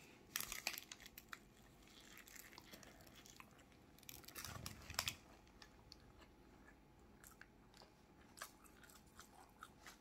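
Faint biting and chewing of a rice burger with lettuce, soft crunches and small mouth clicks, louder just after the start and again about halfway through.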